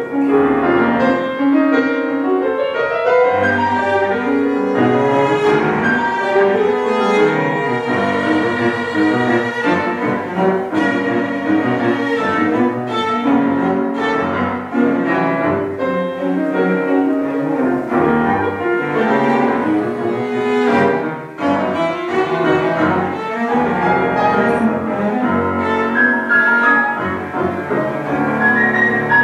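Cello and grand piano playing a classical duet, the cello's bowed melody over piano chords, with a brief dip in loudness about 21 seconds in.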